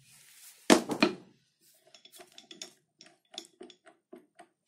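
Metal locking ring cut from pipe being worked onto a lathe's friction-clutch shaft against the thrust disc. One sharp metal clank comes about a second in, then a string of light metallic clicks, about three or four a second, each with a short ring. The ring is a tight fit because it came out slightly oval.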